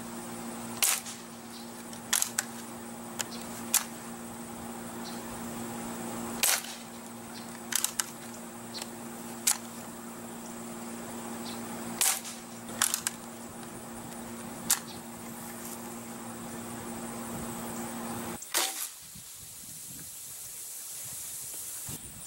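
Crosman 760 Pumpmaster pump-up pellet rifle firing at soda bottles and cans: a series of sharp cracks a few seconds apart, some followed closely by smaller snaps.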